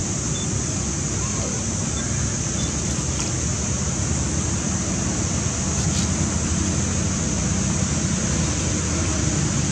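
Steady outdoor background noise: a continuous low rumble under a steady high hiss, with a few faint short high chirps.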